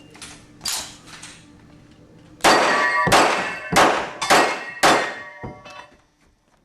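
Handgun shots fired in a fast string: two lighter ones in the first second, then five loud ones about 0.6 s apart, each followed by a short metallic ringing.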